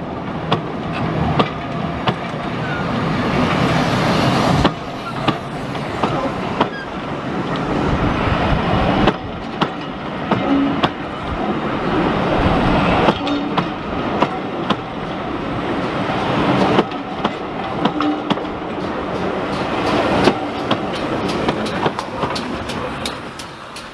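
Railway passenger coaches rolling past close by, their wheels clicking over rail joints in an irregular clatter over a steady rumble. The sound fades over the last seconds as the end of the train passes.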